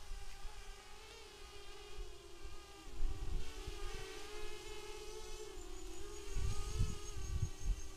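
Miniquad FPV racing drone's electric motors and propellers whining, the pitch wavering up and down with the throttle. Wind buffets the onboard camera's microphone in gusts about three seconds in and again near the end.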